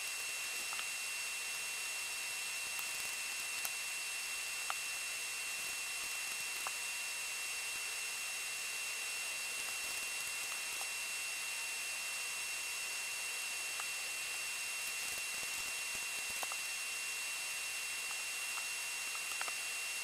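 Steady electronic hiss with a faint, thin high-pitched whine, the recording's own noise floor, broken by a few faint small clicks.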